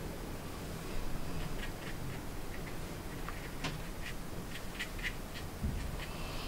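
Faint, irregular ticks and light scratches of a watercolour brush being stroked and dabbed across textured watercolour paper.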